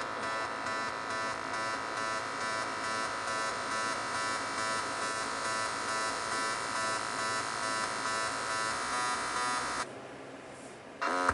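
Buzzing synthesizer drone from a techno track playing through the truck's aftermarket stereo, pulsing about four times a second. It stops about ten seconds in.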